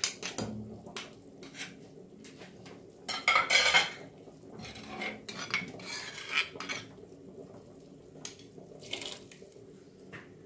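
Metal spoon clinking and scraping against a stone mortar while the last of the pounded curry paste is rinsed out with broth, in a string of separate strokes, the loudest a scrape about three seconds in.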